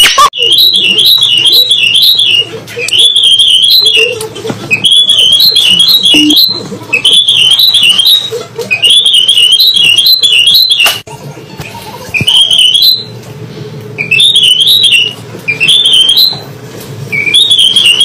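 Cockatiel whistling: short, high, warbling phrases of about a second each, repeated over and over with brief pauses. A single sharp click about eleven seconds in.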